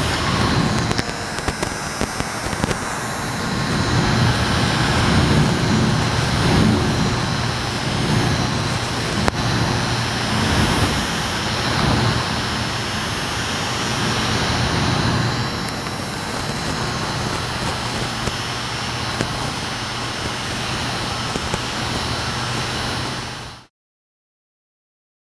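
Small electric fan of a miniature air conditioner running: a steady rushing whoosh of air over a low motor hum, with a few light clicks. It cuts off abruptly near the end.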